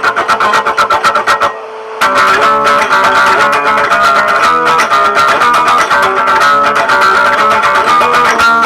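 Guitar intro of a heavy metal song: a fast, even strummed guitar figure, a short break about a second and a half in, then the music fills out and runs on.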